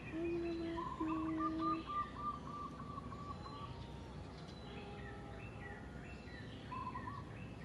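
Several birds chirping and calling, with a quick run of repeated whistled notes about a second in, over steady outdoor background noise.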